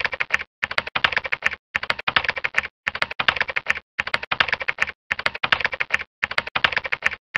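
Keyboard typing sound effect: short runs of rapid keystrokes, about one run a second, each broken off by a brief dead-silent gap, synced to on-screen text typing itself out.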